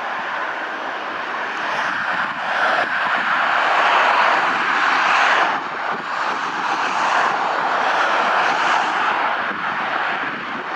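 Road traffic noise: a steady rush of engines and tyres from vehicles going past, swelling twice as nearer vehicles pass. No siren.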